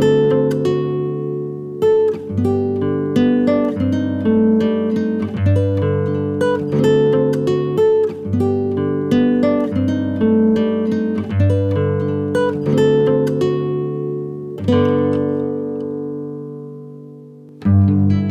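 Background music: acoustic guitar picking notes in a steady rhythm. Near the end a note is left to ring and fade for a few seconds before the playing starts again.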